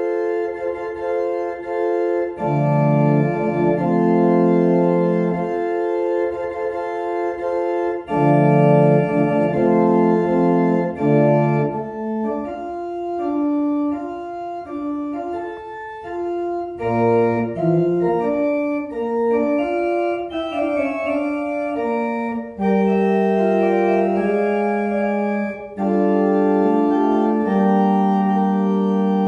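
Organ playing a slow piece of held, sustained chords over a moving bass line.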